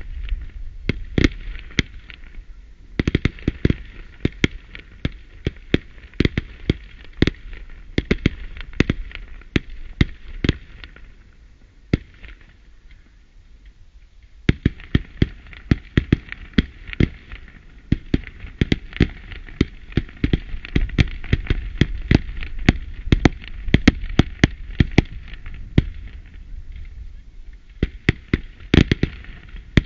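Fireworks display: a rapid series of sharp bangs as shots launch and burst. The firing thins to a short lull about twelve seconds in, then picks up densely again.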